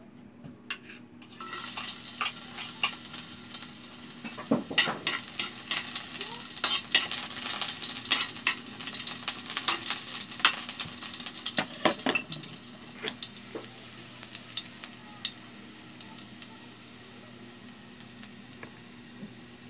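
Chopped garlic hitting hot oil in a metal wok, sizzling suddenly about a second in, then stirred with a metal spoon whose clicks and scrapes on the pan run through the frying hiss. The sizzle and the stirring ease off over the last several seconds.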